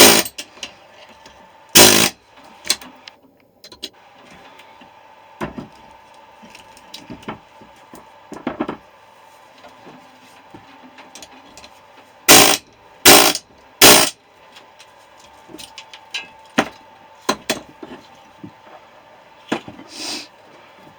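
Loud metal clanks and knocks, three in quick succession about twelve seconds in, among lighter clinks and rattles from handling the cut-open refrigerator compressor parts and copper windings. A faint steady hum runs underneath.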